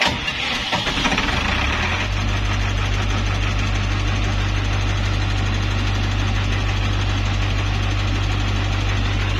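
New 50 kVA diesel generator set starting, its soundproof canopy doors open: the engine catches at once, rises in pitch over about two seconds as it comes up to speed, then runs steadily.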